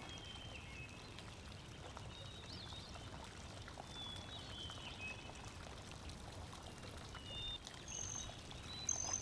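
Water splashing and churning as pelicans beat their wings and run across the surface. A few faint high whistled notes come now and then, and there is a louder splash near the end.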